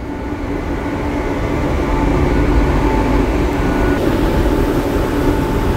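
Steady low rumble at the stern of a container ship under way: the propeller and main engine drone mixed with the rushing of the churning wake.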